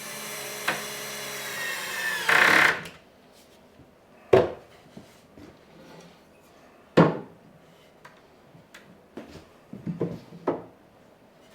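Power drill running for about two and a half seconds, driving a screw into the cedar frame, ending in a louder burst as the screw seats. Then a few sharp knocks of wood and tools being handled.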